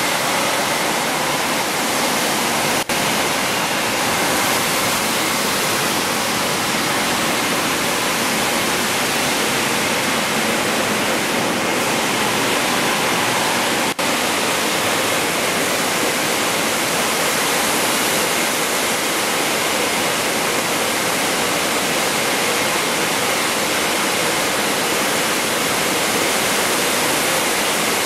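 Stainless-steel fruit air-drying machine running, its blowers sending a loud, steady rush of air through the overhead nozzles onto the mesh conveyor, with a faint steady whine in it. The noise breaks off for an instant twice.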